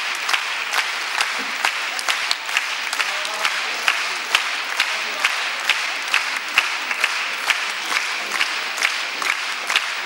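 Audience applauding, the clapping falling into a steady rhythm of about two claps a second.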